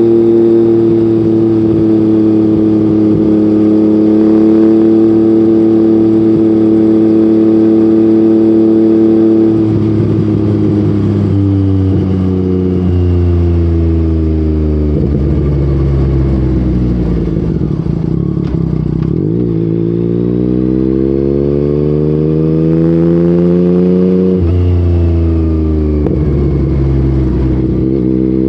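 Yamaha MT-09's inline three-cylinder engine running through an Akrapovic exhaust, holding steady revs for about ten seconds, then revving up repeatedly, with its pitch climbing and dropping sharply at each gear change.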